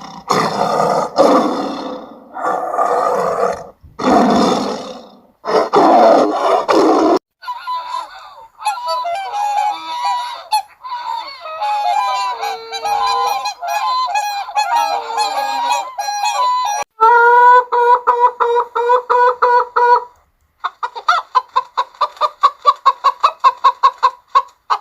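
A series of loud animal calls: for the first several seconds, rough noisy bursts; then domestic geese honking, first as a chattering flock and then in strong, steady honks, ending in a quick run of short repeated calls.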